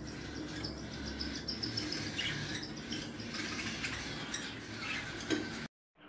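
Faint, scattered chirps of small birds over a steady background noise, cutting off abruptly near the end.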